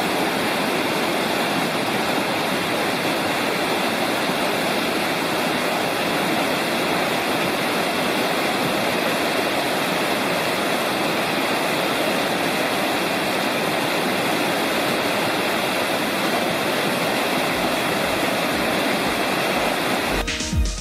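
Mountain creek rushing steadily, an even wash of water noise with a faint steady high tone over it. Music with a beat cuts in at the very end.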